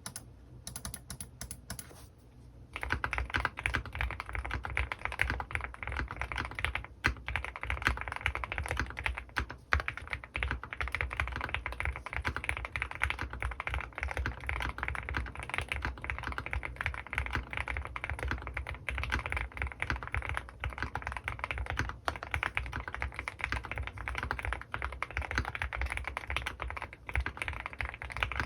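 Typing on an Owlab Mr.Suit custom mechanical keyboard with lubed Gateron North Pole switches and GMK keycaps: a few separate keystrokes, then quick, steady typing from about three seconds in.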